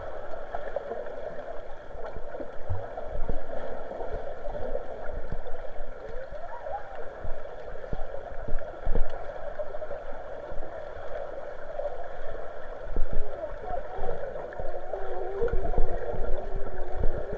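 Muffled underwater sound through an action camera's waterproof housing: water sloshing and gurgling, with frequent low thumps.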